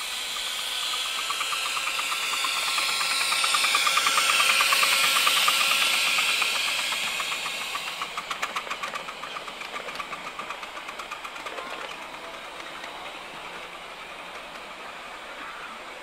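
Miniature 7¼-inch gauge steam locomotive passing close by: rapid exhaust chuffs over a loud hiss of steam. It grows louder to about five seconds in, then fades as it runs away.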